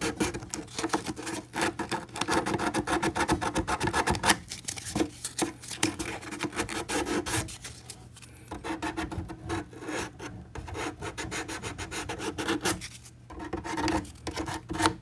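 Sandpaper rubbed by hand over a plastic-welded seam on a plastic glove box part to smooth the melted plastic. It goes in rapid back-and-forth strokes, broken by a few short pauses.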